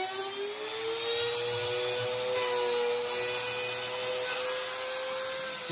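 Handheld trim router running at speed and cutting a shallow pass into a wooden board with a small bit that the owner says is dull. A steady high whine that rises slightly in pitch in the first second or so, then holds, over the hiss of the bit cutting wood.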